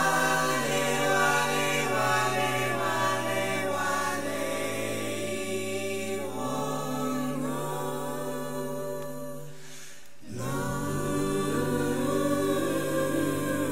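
Background music of choir-like, wordless held vocal chords that change every few seconds, dipping briefly about ten seconds in before coming back in.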